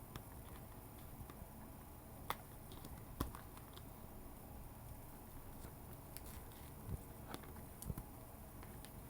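Faint handling sounds: a few scattered clicks and taps, the sharpest about two and three seconds in, over a low steady hum.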